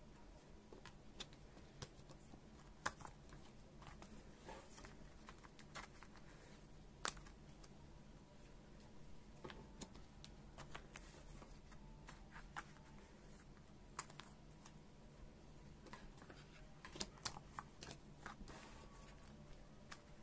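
Quiet handling of photocards and clear plastic card sleeves on a table: scattered soft taps, clicks and plastic crinkles as cards are picked up, sleeved and set down, with a few sharper clicks, over a faint steady hum.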